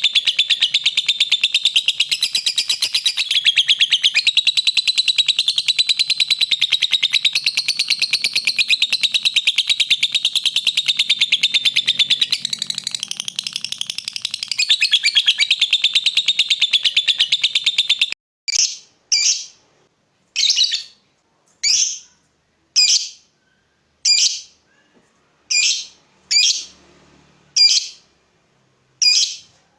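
Lovebird chattering in one long, very fast high-pitched trill, the drawn-out 'ngekek' song. About eighteen seconds in it cuts off abruptly and gives way to a series of sharp single chirps, roughly one a second.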